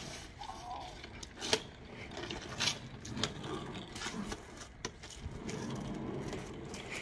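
Casters of a small rolling creeper seat running over rough, wet concrete, with shoes scuffing as the rider pushes it along, and a handful of sharp clicks, the loudest about a second and a half in.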